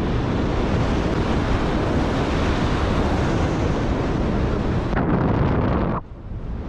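Airflow rushing over the camera microphone of a paraglider in flight, a loud, steady wind noise. It drops off abruptly about six seconds in, then starts to build again.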